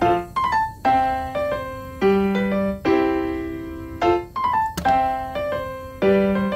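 Background music: a piano playing a light tune, with a new chord struck about once a second and each one dying away.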